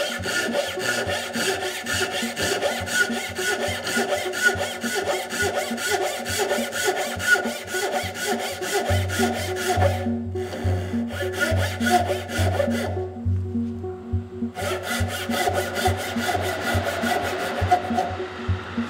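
Japanese backsaw (dozuki-style) cutting across a squared wooden stick with rapid, even strokes, breaking off briefly twice past the middle. Background music with a bass line plays under it.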